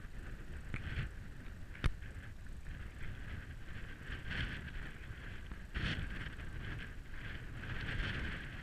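Wind rumbling on the microphone and the scuffing and rustling of walking on a stony trail, with a sharp click about two seconds in.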